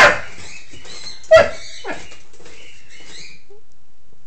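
Doberman puppy giving short play barks: one right at the start and another about a second and a half in, with a fainter one just after it.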